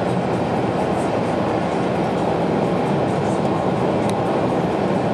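Steady road and tyre noise with engine drone, heard inside the cabin of a car cruising at motorway speed, with a faint tick about four seconds in.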